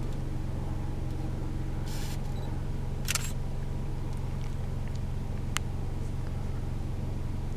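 Car engine idling, a steady low hum, with a short hiss about two seconds in, a sharp brief rustle just after three seconds, and a single click at about five and a half seconds.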